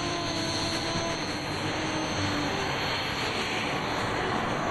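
BAE Hawk T.1 jet trainer taxiing, its Rolls-Royce Turbomeca Adour turbofan at low taxi power: a steady jet rush with faint whining tones, growing slightly fuller in the second half.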